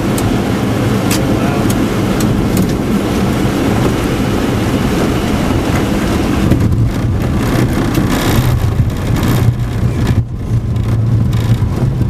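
Loud, steady cockpit noise of a jet airliner on final approach in snow: airflow and engine noise with a strong low hum and a few faint clicks in the first seconds. About six and a half seconds in, the sound turns to a heavier, uneven low rumble as the jet reaches the runway and rolls out.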